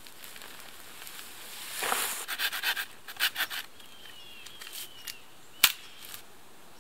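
Rustling in dry brush and soil, then a series of sharp chopping knocks of a blade into a wooden stick, with one loudest crisp knock near the end.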